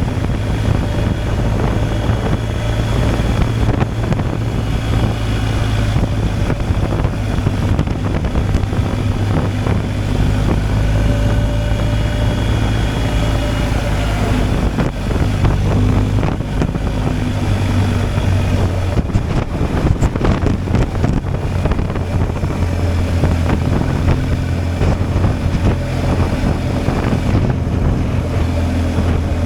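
BMW R 1250 GSA's boxer-twin engine running at a steady cruise while the motorcycle is ridden, with wind rushing over the microphone.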